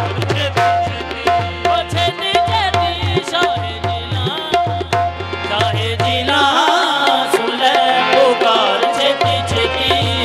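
Qawwali music: tabla and drums beat a steady rhythm under held melody notes. The drums drop out about six and a half seconds in while a voice sings with wavering pitch, then come back near the end.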